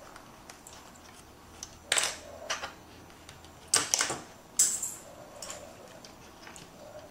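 A pencil scratching on fabric in short strokes while tracing around a pattern piece, with light taps and handling clicks between the strokes.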